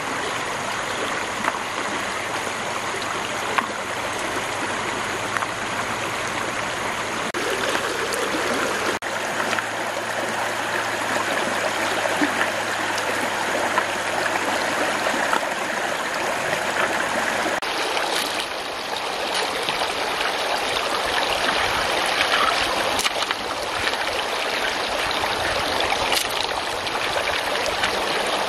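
Shallow stream water flowing over stones, a steady rush and trickle.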